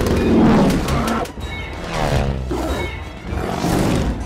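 Orchestral film score mixed with the drone of biplane engines swooping past, their pitch sliding up and down. There is a loud, deep swell in the first second.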